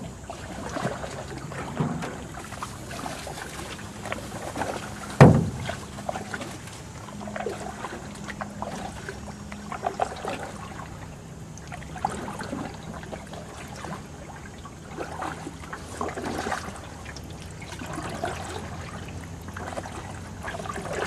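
Kayak paddle strokes in a canoe, with water splashing and dripping off the blades. About five seconds in there is one sharp knock.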